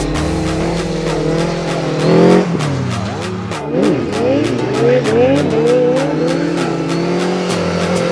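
Sport motorcycle engine revving, with a run of short rising revs in the middle, over background music with a steady beat.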